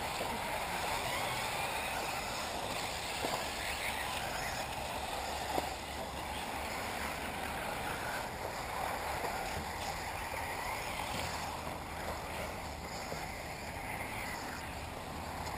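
1/8-scale electric RC off-road buggies racing round the track, their motors whining up and down as they accelerate and brake, over a steady outdoor noise.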